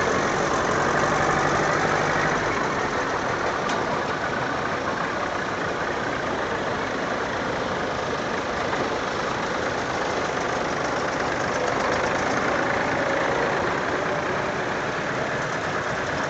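Engines of several vintage tractors running as the tractors drive slowly past one after another.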